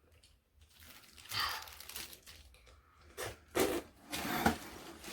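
Plastic jelly-straw tubes being handled, with crinkling and tearing noises in several short bursts.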